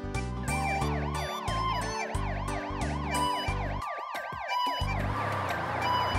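Cartoon ambulance siren effect: a fast rising-and-falling warble that starts about half a second in and cuts out about five seconds in, over children's background music.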